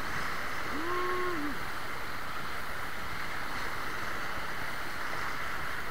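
River rapids rushing around a wooden dugout-style boat, a steady wash of white water throughout. A short held call, rising, steady, then falling, sounds once about a second in.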